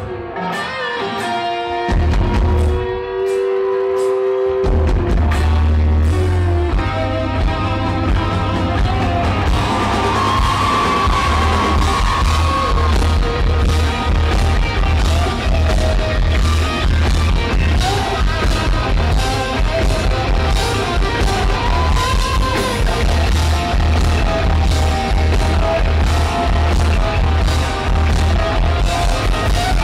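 Live rock band with electric guitars, drums and singing, heard from the crowd. The first few seconds are held electric-guitar notes with scattered hits. About four seconds in, the full band comes in with a steady drum beat.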